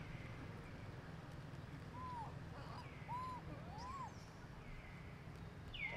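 Faint monkey calls: three short squeaky calls that each rise and fall, close together near the middle, with fainter high chirps over a steady low rumble.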